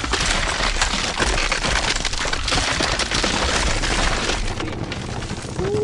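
Sound effect of ground cracking and breaking apart, a dense run of crunches and cracks, accompanying an augmented-reality beanstalk animation bursting up out of the earth. Just before the end a steady pitched tone begins.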